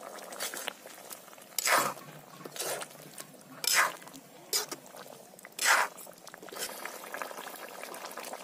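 Fish curry bubbling in a metal kadai while a metal spatula stirs it, with about five short scrapes of the spatula against the pan, roughly one a second.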